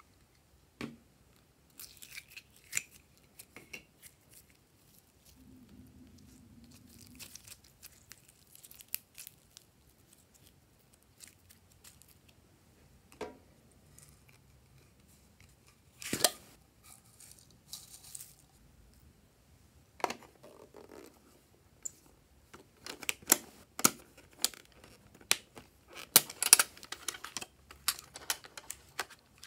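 Hard plastic toy containers handled and opened by hand: scattered sharp clicks and snaps with some rustling, and a quick run of clicks and snaps in the last few seconds.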